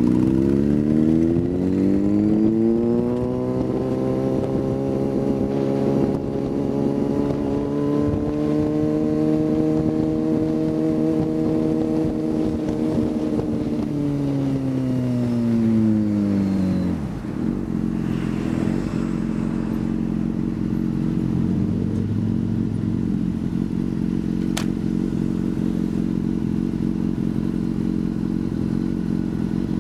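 Motorcycle engine heard from on the bike. It pulls away and climbs in pitch, runs steadily at speed, slows down over a few seconds about halfway through, then idles steadily at a stop.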